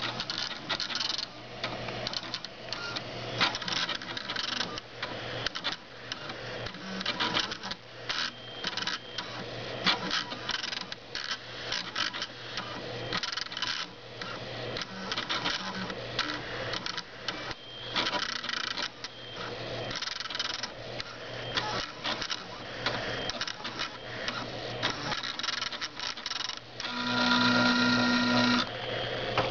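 Stepper motors of a homemade CNC laser engraver driving the laser head in short, jerky moves: a rapid, irregular buzzing and clicking over a steady low hum. Near the end a louder steady whine with several pitches sounds for about two seconds as the motors make a longer, smoother move.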